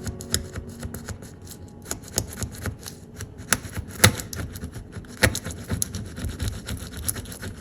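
A razor blade scraping dried superglue flat on a granite countertop: irregular scratchy strokes and sharp clicks of the blade on the stone, with two louder scrapes about four and five seconds in.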